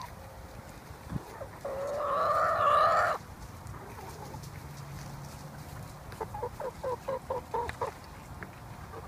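Backyard chickens calling: one long, drawn-out call about two seconds in, then a quick run of about eight short clucks later on.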